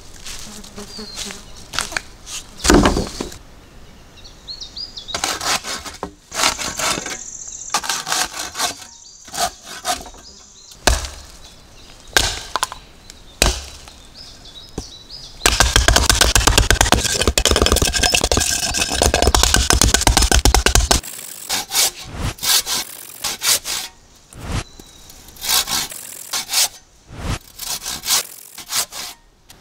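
Hand woodworking on a debarked log: scattered knocks and chops of wood on wood, and about halfway through a stretch of fast hand-sawing lasting some five seconds, followed by more single sawing and cutting strokes.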